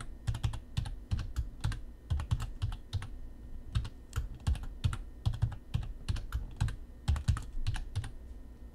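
Typing on a computer keyboard, entering a password and then retyping it to confirm: quick, irregular keystrokes with a short pause about three seconds in.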